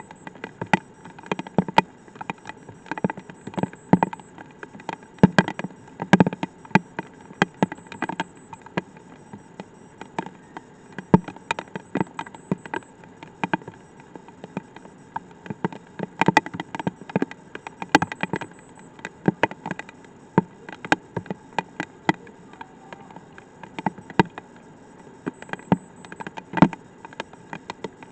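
Light rain: single drops striking in irregular taps, a few a second, some sharper than others, over a faint steady hiss.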